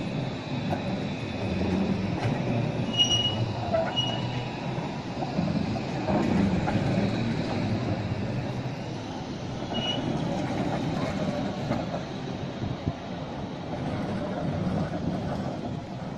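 Končar TMK 2200 low-floor tram passing close by, a steady rumble of steel wheels on rails. Brief high wheel squeals come about three seconds in, again a second later, and once more around ten seconds in. The rumble fades near the end as the tram moves away.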